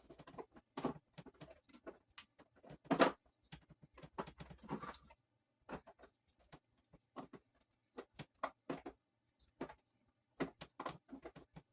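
Irregular clicks, taps and knocks of pliers working against a stubborn screw in a plastic pressure-washer housing, with one sharper knock about three seconds in.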